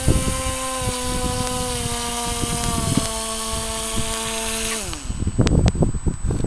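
Model airboat's motor and air propeller whining steadily, the pitch sinking slowly, then winding down sharply about five seconds in as the throttle comes off. Irregular knocks and rustling follow as the boat comes in at the bank.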